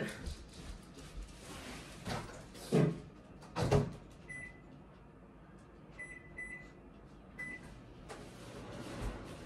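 Microwave oven: two knocks as the door is shut and the dish goes in, then four short high electronic beeps from the keypad as it is set, the first a little longer than the rest.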